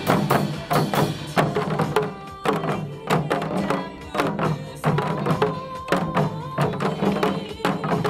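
Janggu, the Korean hourglass drum, struck in a steady beat of sharp strokes along with recorded music.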